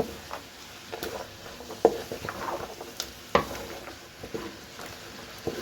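Vegetables frying in a pan with a faint sizzle, while a spoon stirs them and knocks against the pan a few times.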